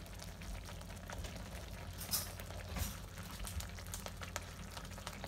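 Thick tomato and vegetable sauce simmering in an open frying pan, its bubbles popping with small soft plops, a couple of them louder about two and three seconds in. The sauce has been reduced uncovered until it is thick enough to coat pasta.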